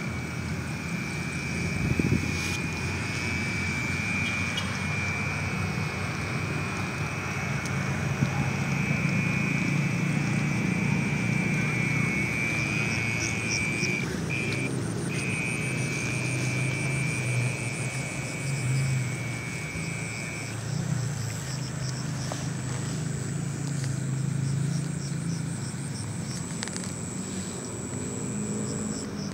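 Night insects shrilling: one steady high-pitched trill that stops about two-thirds of the way through, and a fainter pulsing chirp higher up. Under them runs a steady low rumble.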